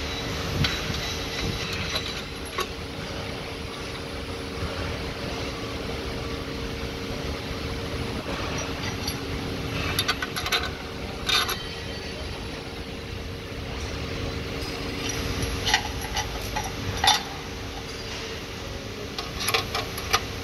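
Metal clinks and taps of steel bolts and a spanner being handled while a clutch pressure plate is bolted onto a Mercedes Actros truck's flywheel, coming in short clusters about halfway through, again later and near the end. Under them a steady mechanical hum carries on throughout.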